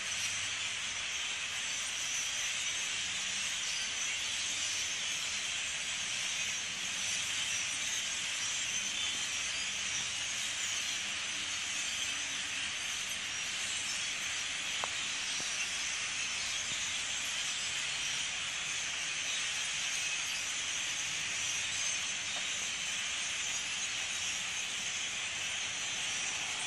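A large flock of European starlings calling together in the treetops: a steady, dense, hissing chatter of many overlapping voices.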